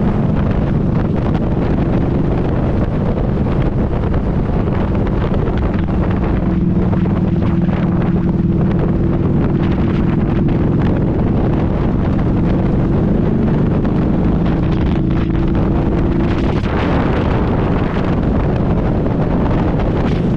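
Harley-Davidson V-Rod's liquid-cooled V-twin engine running steadily at road speed, with wind rushing over the microphone. The engine note climbs slowly and shifts about three-quarters of the way through.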